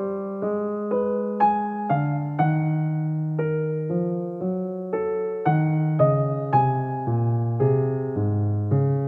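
Background music: a slow, gentle keyboard melody with a new note struck about every half second.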